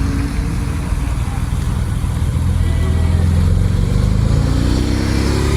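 Car engine running with a deep exhaust rumble, then revving up, rising in pitch near the end.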